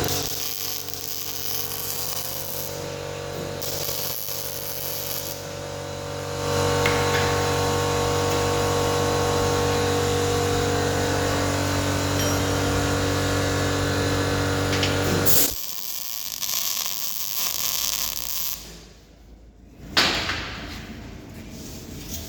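MIG welder arc running steadily with a hissing crackle over a constant machine hum, cutting off abruptly about two-thirds of the way through. A single sharp click comes near the end.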